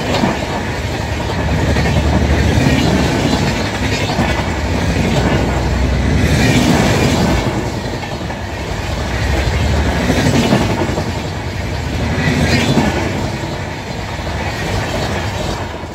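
Humsafar Express passenger coaches passing close by at speed, steel wheels rolling and clattering on the rails, the sound swelling every few seconds as each coach's bogies go by.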